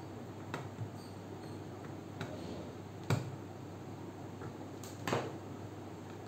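Small clicks and taps from a screwdriver fastening wires into the screw terminals of a plastic smart-switch module. There is a sharper knock about three seconds in, and a small screwdriver clatters down onto the table about five seconds in, over a steady hiss.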